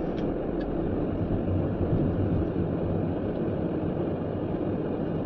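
Steady engine and road noise heard inside the cabin of a moving car.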